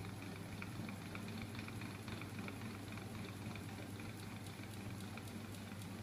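Homemade magnet flywheel machine running: a small 12 V electric motor turns a 10 kg flywheel and its crank linkages, with a steady low hum under a rapid patter of light clicks, several a second.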